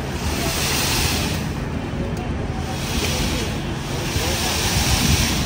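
Concrete pump pipeline discharging wet concrete onto a slab: the mix comes out of the pipe in rushing swells about every two seconds, over a steady low rumble.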